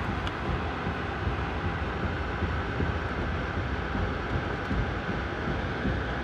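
Steady ride noise of a moving Amtrak passenger train, heard from inside the car: an even low rumble with rattle from the wheels running on the rails.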